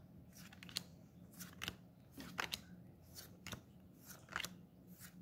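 Pokémon trading cards being flicked through by hand, one card slid off the stack at a time, each giving a faint snap in a quick, irregular series.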